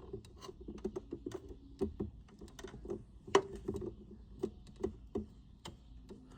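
Irregular light clicks and taps of plastic and metal as a replacement PTC starter relay is pushed onto a chest freezer compressor's terminal pins and its wiring is handled.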